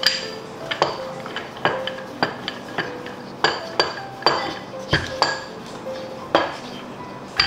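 Wooden rolling pin knocking and clacking against a wooden chopping board as pastry dough is rolled out, giving irregular sharp knocks with a short bright ring, about one or two a second.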